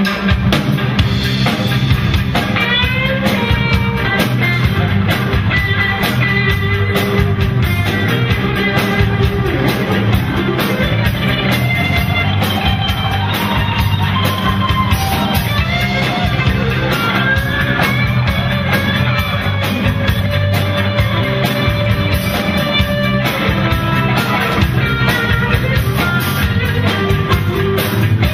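Rock band playing live with electric guitars, bass guitar and drum kit: an instrumental passage with a melodic lead line that bends in pitch over a steady beat.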